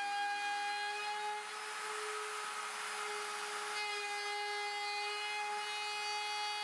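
Rotary tool mounted in a homemade 3D router jig, running with a steady high whine while its bit routs a groove in plywood, with a rasping cutting noise over the motor. The pitch and level shift slightly about a second and a half in as the cut changes.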